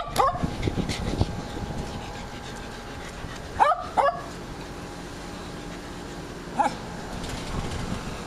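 Shetland sheepdog barking in short, sharp, high-pitched barks: a pair at the start, two more a few seconds later and a single bark near the end.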